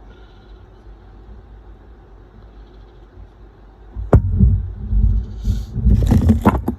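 Workbench handling noise: after a few seconds of faint hum, a sharp click, then knocks, rubbing and scrapes as small parts and tools of an RC truck are handled close to the microphone.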